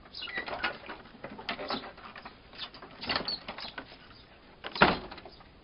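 Wooden plank shed door knocking and scraping as it is handled and pushed by a dog's paw, with one loud bang about five seconds in.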